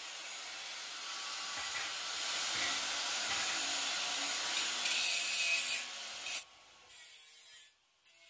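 Makita angle grinder with an abrasive cut-off disc cutting through square steel tube: a steady harsh hiss of disc on metal that stops about six and a half seconds in.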